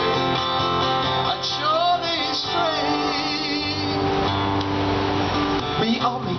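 Acoustic guitar strummed steadily through an instrumental passage of a folk-style song, with a voice singing a short melodic line about a second and a half in.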